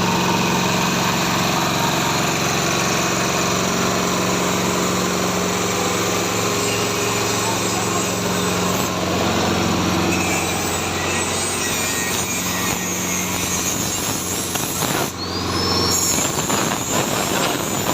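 Compost shredder machine running steadily on a test run, its motor and shredding rotor giving a continuous hum with dense mechanical noise; the pitch shifts slightly about ten seconds in.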